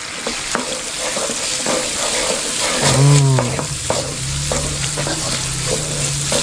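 Baby octopus and sambal chili paste sizzling in hot oil in a wok while a wooden spatula stirs and scrapes through it, with frequent light knocks of the spatula against the pan.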